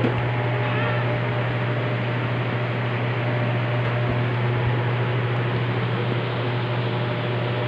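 Steady low mechanical hum over an even hiss, from a running electric appliance.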